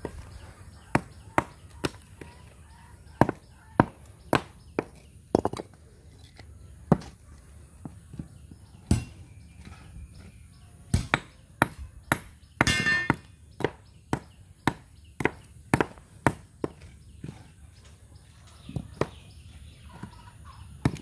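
A small hammer striking chunks of broken brick and concrete, sharp knocks at an irregular pace of about one or two a second, with a longer, noisier crunch near the middle.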